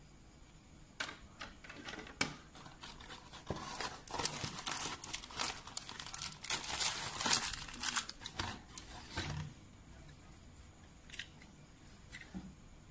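Cardboard toy box and plastic packaging handled and opened, with rustling, crinkling and light clicks, loudest in the middle. A few separate plastic clicks follow near the end.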